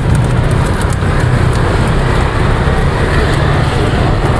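Steady rumble of road traffic passing close by, with faint light ticks over it.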